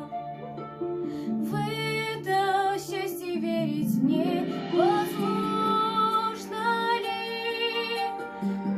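A girl singing a slow song solo over a soft instrumental accompaniment with plucked-string notes.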